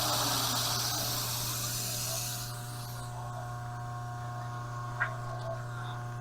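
Metal lathe turning steel: the hiss of the cut fades and stops about two and a half seconds in, leaving a steady motor hum with faint whining tones. One sharp click about five seconds in.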